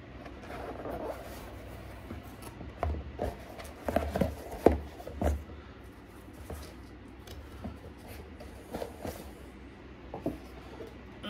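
Handling of a small cardboard engine box: flaps rustling and rubbing as it is opened and the foam inserts are pulled out, with a scatter of light knocks and thumps, loudest about four to five seconds in.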